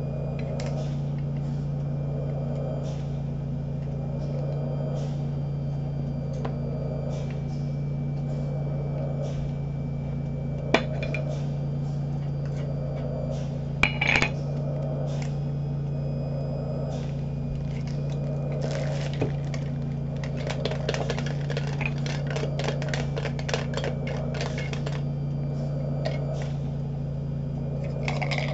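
Metal Funko Soda can being handled and opened: scattered clinks and taps of the tin, a couple of sharp clicks near the middle, then a dense run of clicking and scraping about two-thirds of the way through, over a steady low hum.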